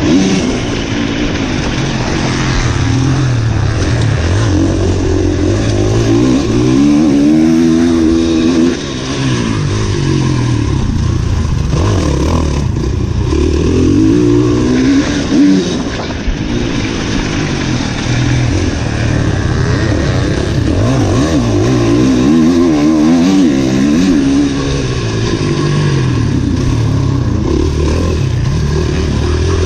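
Dirt bike engine revving loudly and continuously, its pitch climbing and dropping again and again as the rider opens and closes the throttle around a motocross track.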